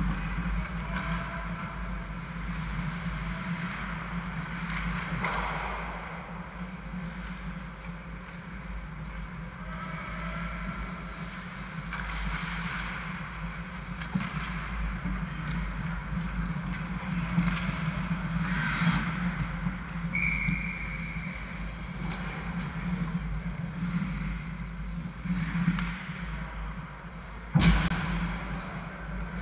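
Ice hockey game in an indoor arena: a steady low hum under the scattered scrapes and knocks of play, with one sharp crack near the end, such as a puck or stick striking.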